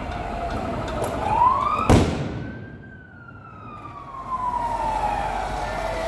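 A siren wailing: its pitch rises, then falls slowly over several seconds. About two seconds in there is one sharp, loud bang.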